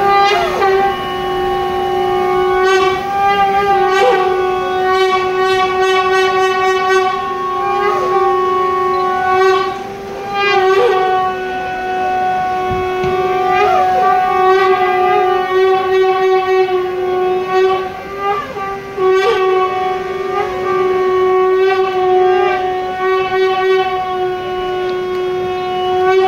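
Conch shells (shankh) blown in one long, steady, loud drone, with short swoops in pitch every few seconds, the traditional sounding of the shankh at a Hindu wedding's garland exchange.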